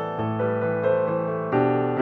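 Background music: gentle piano playing chords and melody notes, with a fresh chord struck about a second and a half in.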